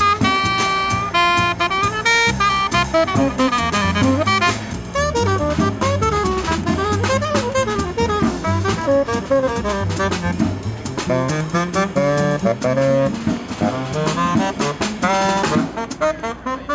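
Jazz band playing, a saxophone or brass horn carrying a moving melody over a drum kit keeping a steady beat.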